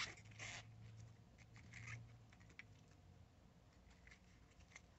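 Near silence, with a few faint clicks and scratches of small objects being handled.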